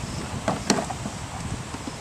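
Wind buffeting the microphone, with two short knocks close together about half a second in.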